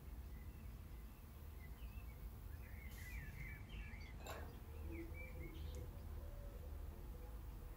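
Faint bird chirps, a quick run of short twittering calls over a steady low hum, with one light click about four seconds in.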